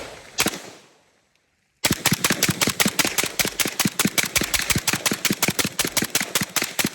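Saiga .223 AK-pattern rifle firing: one shot about half a second in, then after a pause a rapid string of several dozen shots at roughly nine a second for about five seconds.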